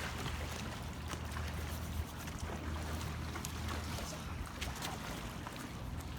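A steady low mechanical hum with a faint hiss over it, and scattered light clicks and handling noises.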